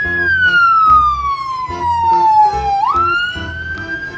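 Police siren wailing: it holds high, slides slowly down in pitch for a couple of seconds, then sweeps quickly back up about three seconds in and holds. A repeating bass beat runs underneath.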